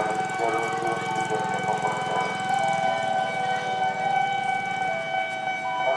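Railroad crossing alarm (Nippon Signal electronic crossing bell) sounding at a fast tempo. It gives a rapid, even pulsing under several steady high tones.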